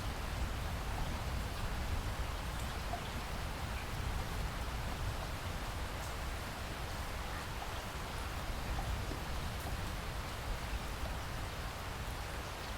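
Steady rain falling, a continuous hiss with faint scattered drop ticks and a low rumble underneath.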